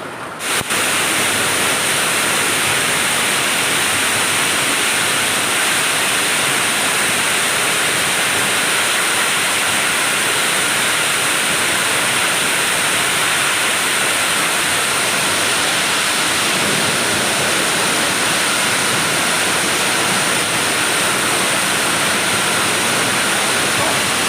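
Waterfall: a steady, loud rush of falling water that cuts in abruptly about half a second in and stays even throughout.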